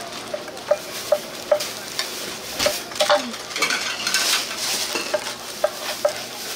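Metal spatulas clinking and scraping on a hot iron griddle while gopchang is stir-fried, with repeated uneven clinks over a steady sizzle.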